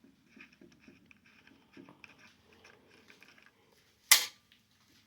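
Small clicks and rustles from a battery angle grinder and its parts being handled, with one sharp, loud clack about four seconds in.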